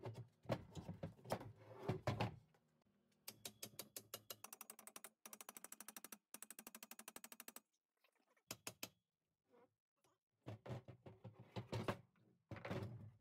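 Socket ratchet clicking quickly and evenly, about eight to ten clicks a second, for around four seconds in the middle while undoing nuts on a steel control arm and subframe. Scattered metal knocks and clinks from the parts being handled come before and after.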